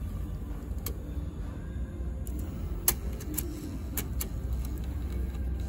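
Scattered mechanical clicks and taps from the MiniDV tape deck and its cassette being handled, over a low steady hum. The sharpest click comes about three seconds in.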